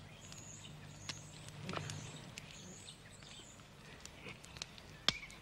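Faint woodland ambience: soft high bird chirps over a low steady hum, with a few small clicks, the sharpest one near the end.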